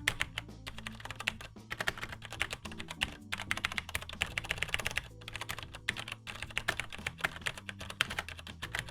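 Continuous fast typing on a mechanical keyboard with tactile Cherry MX switches that give a felt bump but no click, so what is heard is the keys bottoming out and returning. A few short pauses break the run.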